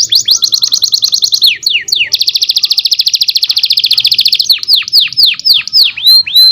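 Domestic canary singing: rapid runs of repeated high notes, each a quick falling whistle, with a very fast trill in the middle and slower repeated falling notes near the end.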